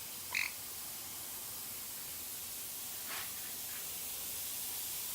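Fine water mister spraying a bird with a steady hiss. A parrot chirps briefly about half a second in, and more faintly about three seconds in.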